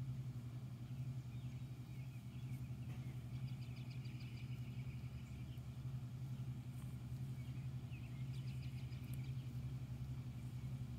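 A steady low mechanical hum, with faint high-pitched chirping twice, about three and eight seconds in.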